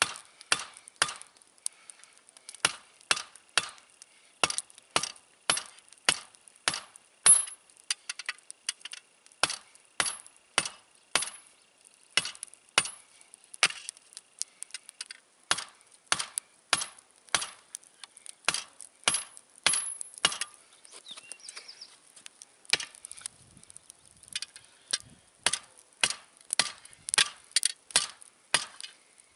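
Hand hammer forging hot metal: sharp, ringing blows about twice a second, stopping briefly about three-quarters of the way through, then starting again.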